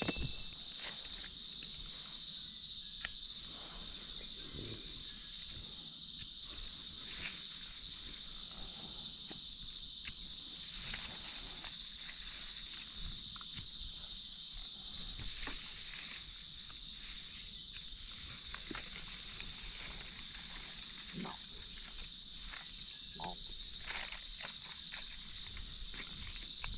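A continuous insect chorus, crickets trilling in a steady high band. Over it come scattered crackles and rustles of footsteps and handling in dry forest leaf litter.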